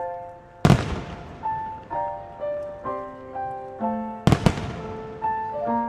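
Aerial firework shells bursting in loud booms, one about half a second in and two in quick succession about four seconds in, each with a fading echo. Under them runs music with a melody of held notes.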